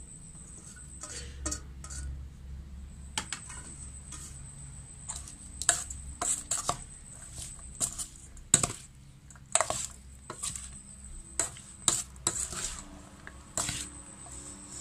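Metal spoon scraping and clinking against a stainless steel mixing bowl as a shredded mango salad is tossed. The strokes come irregularly, with the sharpest clink about eight and a half seconds in.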